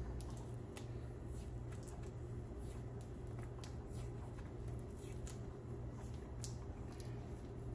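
Electrical tape being peeled off the roll and wound around a cable and nylon pull cord by gloved hands: faint, scattered small crackles and clicks over a steady low hum.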